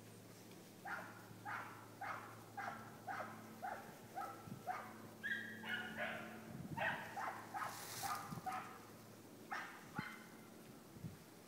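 Hunting dogs barking in a steady run of short calls, about two a second, with a higher-pitched voice joining about halfway through. This is the pack giving voice as it runs a rabbit's trail.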